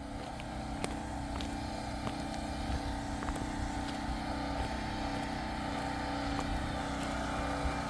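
Portable generator engine running steadily with an even hum, with a few light clicks scattered through it.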